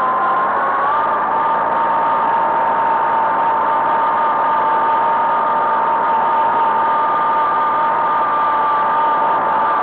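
Kubota B1820 compact tractor's diesel engine running steadily at about 2,000 rpm while the tractor is driven, with a steady high whine that shifts slightly in pitch about a second in.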